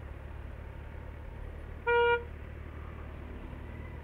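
A vehicle horn gives one short toot about two seconds in, over the steady low rumble of a motorcycle engine and traffic.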